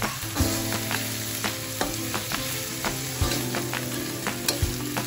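Corned beef and diced potatoes sizzling in an aluminium wok while a metal spatula stirs them, scraping and clicking against the pan about once or twice a second.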